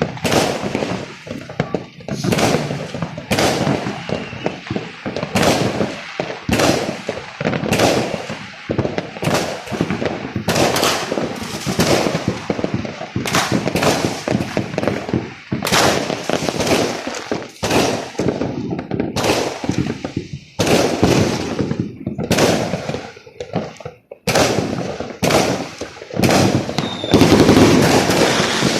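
Fireworks going off: a dense, continuous run of bangs and crackling reports, loudest near the end.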